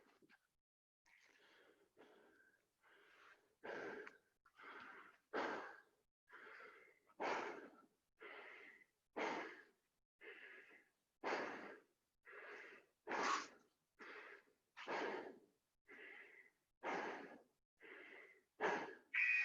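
A man breathing hard from the exertion of burpees, in and out about once a second, with every other breath louder.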